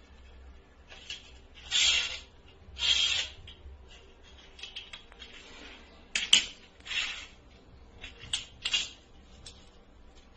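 Parts of a wheeled appliance base being handled and fitted together: two scraping rustles early on, then a run of sharp clicks and short knocks.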